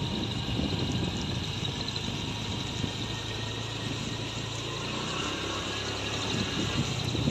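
A vehicle's engine running steadily under way, a low hum beneath a steady hiss of wind and road noise.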